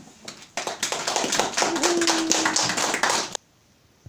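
A small audience clapping for about three seconds, cut off suddenly.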